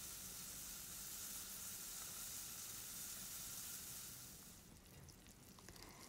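Flour-coated fish fillet shallow-frying in hot oil: a faint, steady sizzle that dies down about four and a half seconds in, leaving scattered small crackles.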